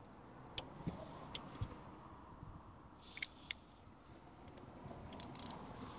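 Faint, scattered metallic clicks and taps of hand tools at work on a motorcycle's front fork yoke clamp bolts, over a steady low rumble.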